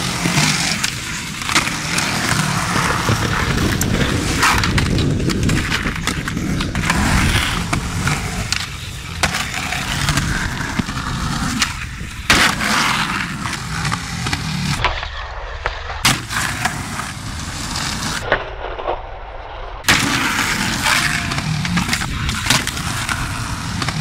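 Skateboard wheels rolling on pavement, broken up by many sharp clacks and knocks of the board hitting the ground in pops and landings.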